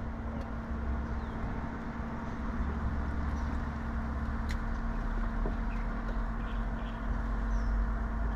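A steady low motor hum with a constant tone under it, and a few faint chirps above it.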